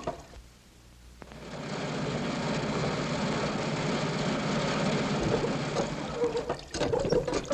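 Radio-drama sound effect of an old car engine running, the crippled car driving off. It starts about a second in, runs steadily with a fast chugging rattle, and fades out near the end.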